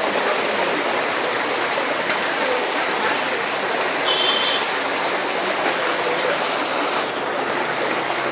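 Floodwater rushing and pouring steadily, a constant watery rush. A brief high-pitched tone sounds about four seconds in.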